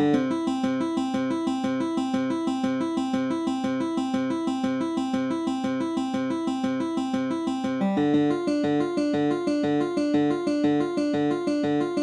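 Instrumental background music with a steady pulse of repeated notes; about eight seconds in the lower part changes to a new, stronger pattern.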